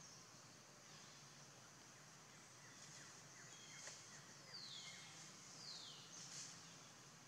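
Faint outdoor forest ambience: a steady high hiss with a few short, faint falling calls around three seconds in, then two clearer falling calls about four and a half and five and a half seconds in.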